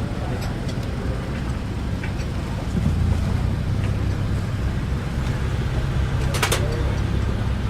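Sports car engine running steadily at low revs, its pitch holding steady and a little louder from about three seconds in. A couple of short sharp clicks come about six and a half seconds in.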